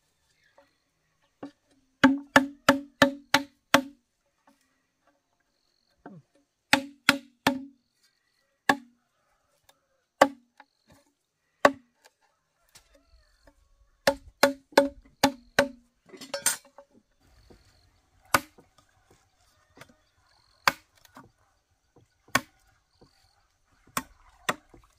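Machete chopping through a thick dry bamboo tube: sharp knocks, each with a short low ring. They come in quick runs of about six strokes and as single blows, with one longer, noisier crack about sixteen seconds in.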